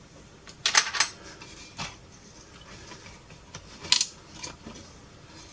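Metal front plate of a Pioneer SA-620 amplifier being worked loose and lifted off the chassis: a handful of sharp metallic clicks and knocks, the loudest about a second in and again near four seconds.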